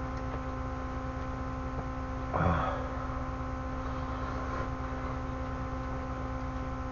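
Steady electrical hum, with one short eating sound about two and a half seconds in as a spoonful of ramen noodles and rice is taken from the tray.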